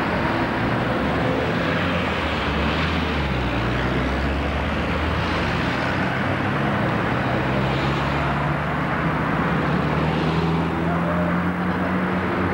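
Motor vehicle engine running in street traffic, a low drone that climbs slowly in pitch over several seconds, over a steady hiss of road noise.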